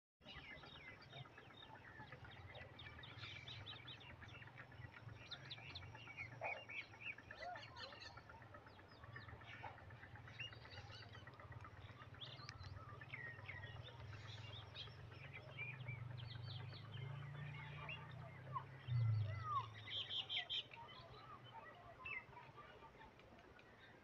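Many small birds chirping and whistling in short, overlapping calls, over a steady low hum. The loudest calls and sounds come about three-quarters of the way through.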